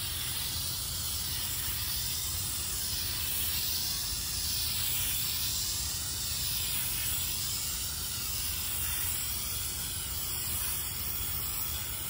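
Aerosol can of Frost King foaming coil cleaner spraying continuously onto an air conditioner condenser coil: a steady hiss that slowly wavers in tone.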